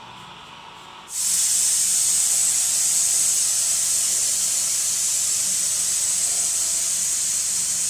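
SMI pressure cooker letting steam out through its weight valve: a loud, steady, high hiss that starts suddenly about a second in. It is the cooker's whistle, the sign that it has come up to pressure.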